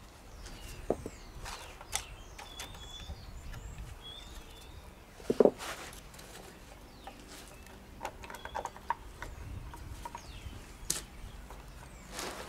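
Faint scattered clicks and knocks as the John Deere JS63C self-drive gearbox's top cover and its clutch and gear levers are worked into place by hand, with a louder knock about five and a half seconds in. Birds chirp faintly in the background.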